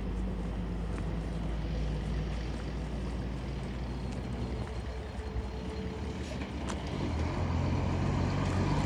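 A motor vehicle's engine running steadily with road noise, as from a vehicle driving along; its low hum shifts slightly about seven seconds in.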